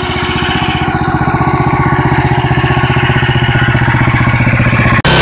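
Engine of a homemade hydraulic water well drill rig running steadily with an even, rapid beat, growing a little louder, with a brief break just before the end.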